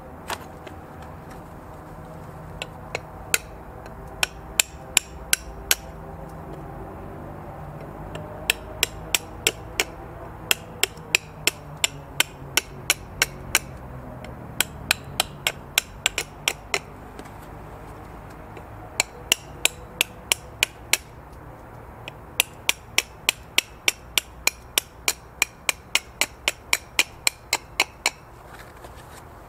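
A knife blade cutting a notch into the edge of a thin plastic chopping board: sharp clicking snaps, about two or three a second, in several runs with short pauses between.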